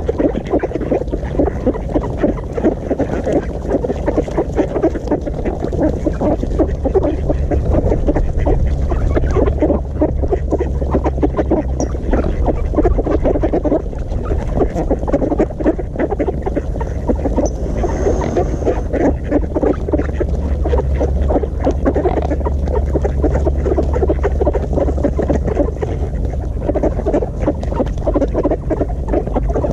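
A group of ducks feeding at close range, giving a dense, continuous chatter of quacks and rapid short clicks, over a steady low rumble.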